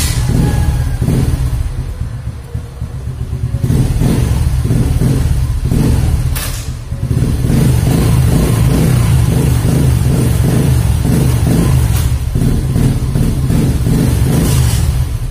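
Kawasaki Fury 125 motorcycle engine running and being revved, the revs easing off twice in the first seven seconds and then rising again.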